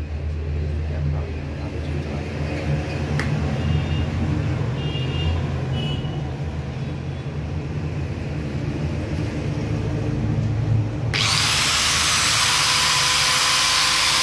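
Hitachi G10SS2 angle grinder motor running on a test run with freshly fitted carbon brushes. About eleven seconds in, a loud steady hiss starts suddenly and covers it.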